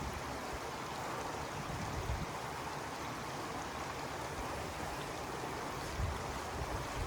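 Steady rushing of falling water from a hot spring's waterfall.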